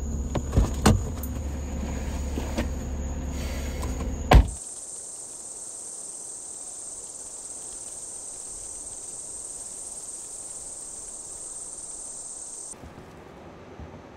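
Crickets chirping over a low steady rumble, with a few knocks and a loud thump about four seconds in. Then a steady high-pitched insect drone for about eight seconds, which cuts off abruptly to quiet hiss.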